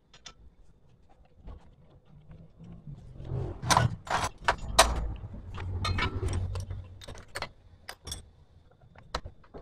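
Metal parts and hand tools clinking and knocking as a Honda CD70 engine is assembled by hand: a run of sharp clicks and clanks, loudest and densest in the middle, over a low rumble of handling.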